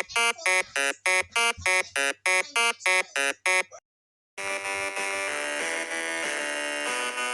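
Electronic buzzer-like tone pulsing evenly, about three to four beeps a second, that stops about four seconds in; after a short silence a steady synthesized chord-like tone starts.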